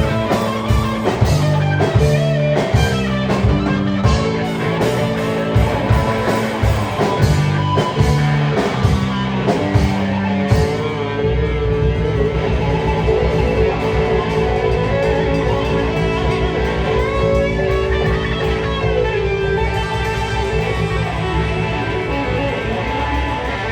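Live rock band playing electric guitar, bass and drum kit. For about the first ten seconds the band plays choppy, stop-start chords punctuated by drum hits, then moves into sustained, ringing chords over a held bass with fewer hits.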